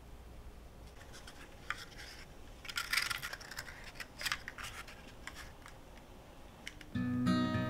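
Paper cupcake liners rustling and scraping as they are separated and set down on a plate, a few short scratchy rustles, loudest about three seconds in. Acoustic guitar music comes in near the end.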